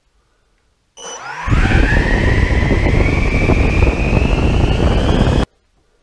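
Electric ducted fan spooling up on a model jet: a whine that rises steadily in pitch over several seconds over a loud rush of air, then cuts off suddenly near the end.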